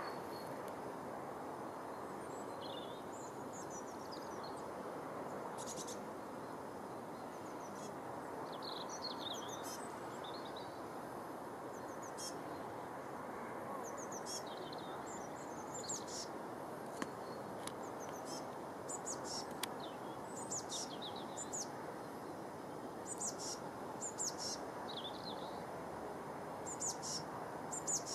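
Small songbirds chirping and singing in short, high phrases, more often in the second half, over a steady background rumble of outdoor noise.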